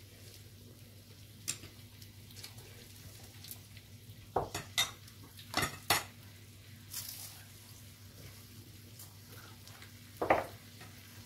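Spoons, chopsticks and tongs clinking against ceramic bowls and plates at a tabletop hotpot and grill meal, with a cluster of sharp clinks in the middle and one louder knock near the end. A faint sizzle and a steady low hum from the cooking run underneath.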